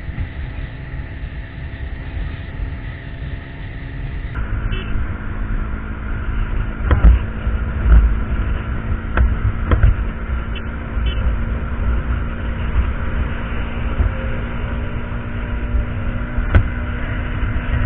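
KTM Duke 200's single-cylinder engine running at a steady cruise, under heavy wind rumble on the microphone. The sound changes abruptly about four seconds in, and a few sharp knocks come midway and one near the end.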